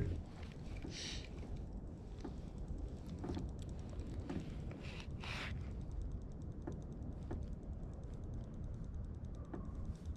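Faint, scattered light clicks from a spinning rod and reel being handled while a jig is worked slowly, over a steady low rumble. Two short hissing bursts come about a second in and about five seconds in.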